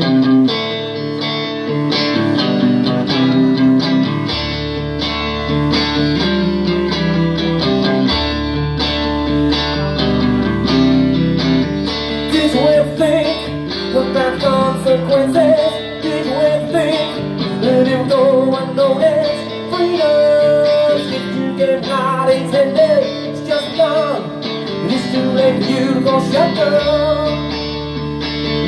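Live blues band playing an instrumental passage: electric guitar, bass guitar and drums, with a lead guitar line bending notes from about halfway in.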